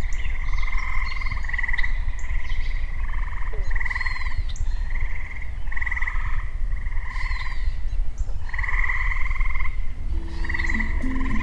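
A chorus of frogs calling: short pulsed trills, one after another every second or so, with quick bird chirps above them. Low held tones come in near the end.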